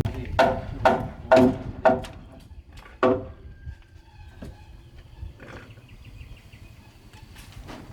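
A pig making five short grunting squeals in the first three seconds, then quieter.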